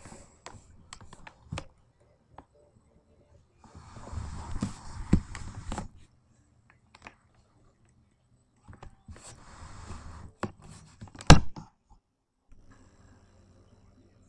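Small fluffy dog humping a plush toy on a bed close to the microphone: fur and fabric rustling with scattered knocks, in two bursts about four and nine seconds in, with one sharp knock about eleven seconds in.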